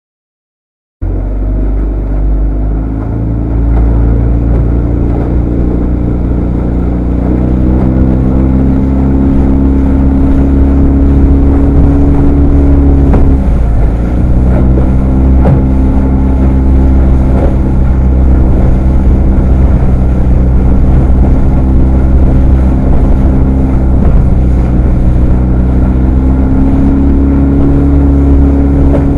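Motorboat engine running under way, starting abruptly about a second in; its pitch shifts as the throttle changes, dipping briefly about halfway and rising near the end. Wind buffets the microphone throughout.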